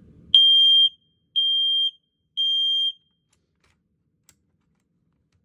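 Kidde i9070 smoke alarm sounding on test: three extremely loud, high-pitched beeps, each about half a second long and about a second apart, in the temporal-three alarm pattern, then it stops.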